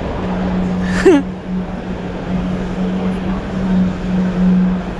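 Exhibition-hall background: a steady low hum over a general crowd hubbub. About a second in there is one short squeal that falls quickly in pitch.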